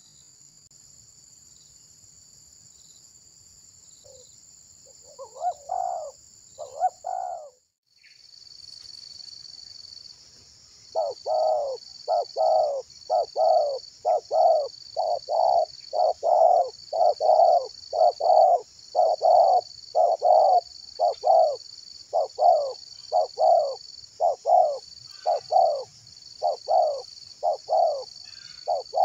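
Spotted doves cooing: a few coos, then from about a third of the way in a fast, even run of short coos at nearly two a second. A steady high-pitched buzz runs underneath.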